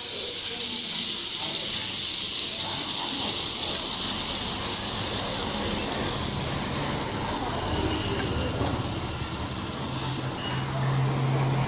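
Coconut batter sizzling with a steady hiss in a hot cast-iron kanom krok pan. A low hum grows louder near the end.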